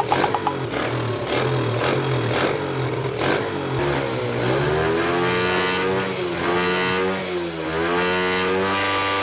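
Motorcycle engine being revved. At first it pulses in a regular rhythm, then from about four seconds in comes a string of revs whose pitch swings up and down.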